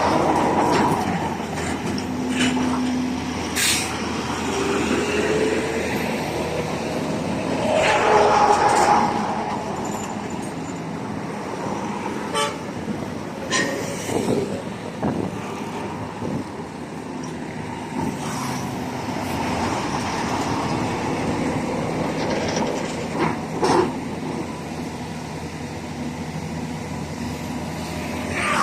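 Backhoe's diesel engine running steadily, with a series of sharp metal clanks and knocks as the machine works. A short horn-like tone sounds about two seconds in.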